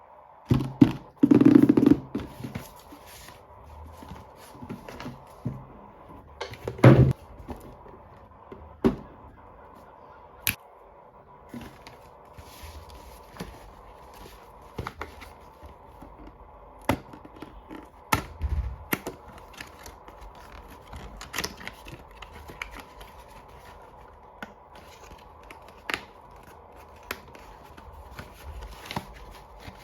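Toy packaging and miniature dolls being handled and unboxed: scattered taps, clicks and scrapes, with heavier knocks about a second in and about seven seconds in.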